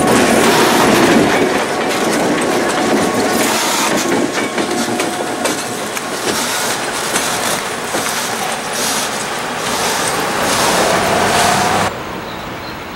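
EMD GP7 diesel locomotive passing close, then passenger coaches rolling by, their wheels clicking over rail joints with a faint squeal now and then. About a second before the end the loud rumble cuts off suddenly to a quieter, distant train sound.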